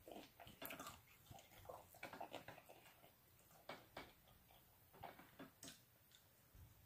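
Faint mouth sounds of eating fried chicken by hand: chewing and lip smacks, with scattered soft clicks as the meat is picked off the bones.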